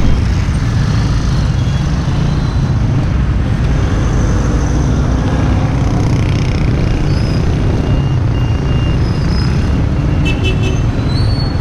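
Steady low rumble of riding a scooter through city traffic, heard from a helmet-mounted microphone: wind on the mic mixed with the scooter's engine and the surrounding motorcycles and tricycles. A few short high-pitched beeps sound in the second half.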